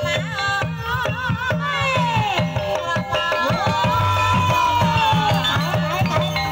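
Banyumasan gamelan music for ebeg: kendang hand-drum strokes keep the rhythm while a high, ornamented melody slides down, then rises and holds one wavering note for about two seconds.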